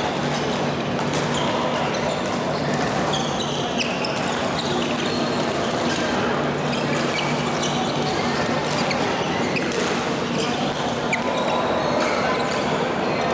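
Badminton rackets hitting shuttlecocks, a run of sharp smacks from rallies on this and neighbouring courts, echoing in a large sports hall over background chatter and a steady low hum.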